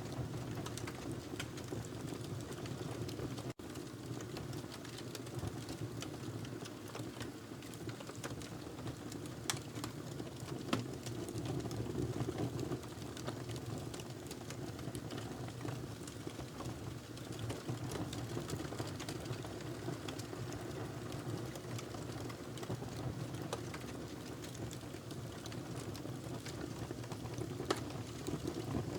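Fire burning in a fireplace: a steady low rumble of flames with scattered sharp crackles and pops, a few louder pops about ten seconds in and near the end. The sound cuts out for an instant about three and a half seconds in.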